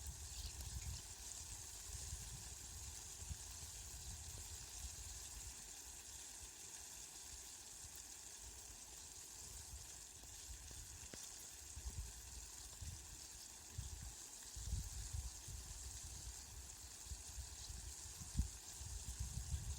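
Steady rain falling, an even hiss, with low rumbles that swell and fade at times, strongest in the last few seconds.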